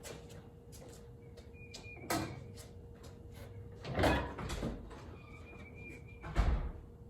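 Car door clunks and thumps: a light knock about two seconds in, a louder clunk about four seconds in followed closely by another, and a heavy shut near the end. No engine is running.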